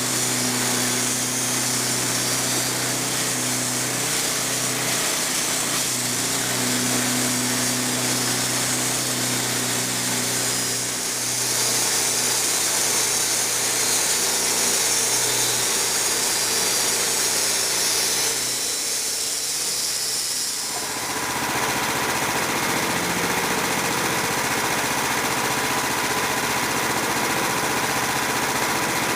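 Sawmill with a small engine running steadily while it resaws soft maple planks; the sound dips and changes about twenty seconds in.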